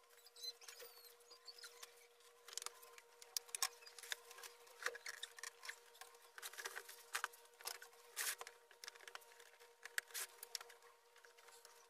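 Faint scattered rustles and light knocks of belongings being handled and moved about on closet shelves, over a thin steady hum.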